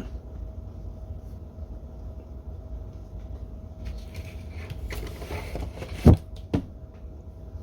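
Steady low hum with a faint constant tone; about four seconds in, rustling and handling of objects, then two sharp knocks about half a second apart, the loudest sounds.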